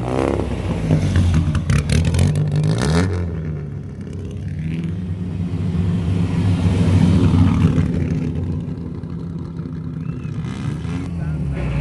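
Classic rally cars driving past one after another with their engines accelerating. A loud pass comes in the first three seconds, its engine pitch dropping as it goes by, and another car builds up and passes about seven to eight seconds in.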